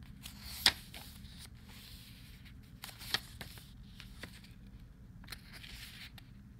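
Pages of a small paper booklet being leafed through by hand: soft paper rustling with two sharp page snaps, the louder about half a second in and another about three seconds in.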